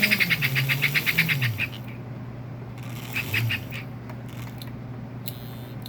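Vintage conventional AC toy train locomotive's motor and gears running with a fast rhythmic clatter and a hum that drops in pitch as it slows and stops, about a second and a half in. A brief spurt of running follows near the middle, then only a steady hum and a few clicks as the power is cycled through the E-unit reversing switch.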